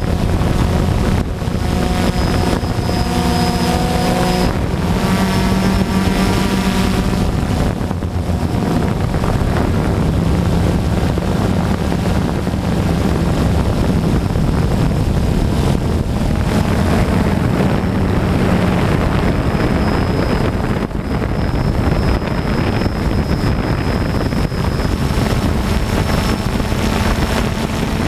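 DJI Phantom quadcopter's motors and propellers whining in flight, heard from the camera on board, with a pitch that shifts now and then. Wind buffets the microphone.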